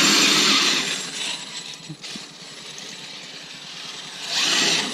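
Electric RC monster truck (Traxxas X-Maxx) driving hard: a sudden burst of motor whine and drivetrain and tire noise that fades over about a second, then a second burst about four seconds in.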